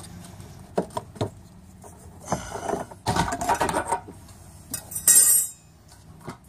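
Handling of a fuel pump assembly's metal locking ring on a plastic fuel tank: scattered clicks and knocks, two stretches of scraping and rubbing, and a louder hissing scrape about five seconds in as the ring and pump flange are worked loose.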